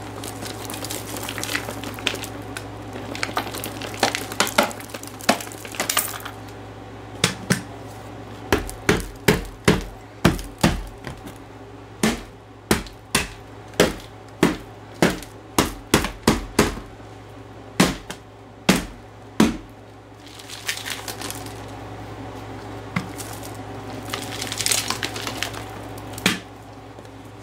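Vacuum cleaner motor running steadily, with debris crackling and rattling through the nozzle at the start and again near the end. In the middle comes a run of sharp knocks, about one and a half a second, louder than the vacuum.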